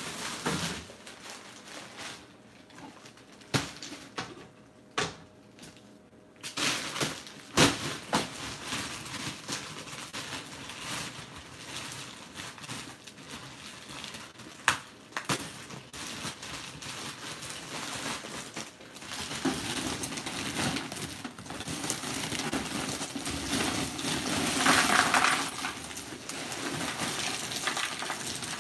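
Ice cubes clattering and knocking into a large plastic container of chunky fruit water, splashing into the liquid. A few sharp knocks stand out in the first half, and the rattling grows loudest near the end.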